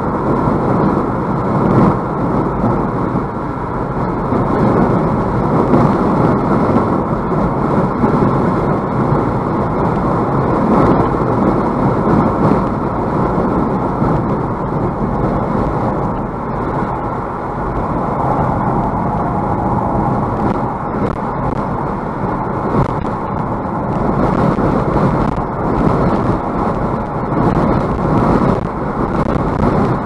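Car driving in strong wind, heard from inside the cabin: steady road and wind noise that swells and eases a little.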